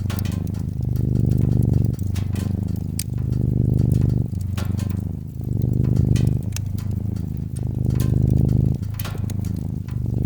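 Domestic cat purring close up, the low rumble swelling and easing with each breath about every two seconds. A wood fire crackles with scattered sharp pops throughout.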